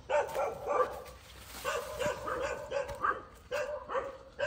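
A dog yelping and barking repeatedly, short high calls coming in clusters of two or three.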